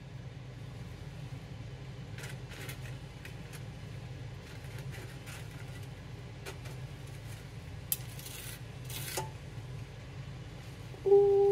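Light kitchen handling sounds, scattered clicks, rubbing and a clatter of dishes or utensils, over a steady low hum. Near the end a cat meows loudly, one long call that drops in pitch as it ends.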